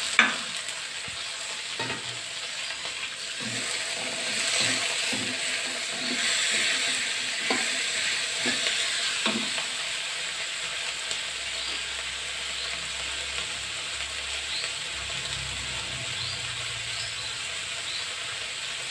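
Chopped choy sum stems sizzling in hot oil in a wok. A metal spatula scrapes and knocks against the pan as they are stirred over the first half. After that there is a steadier sizzle.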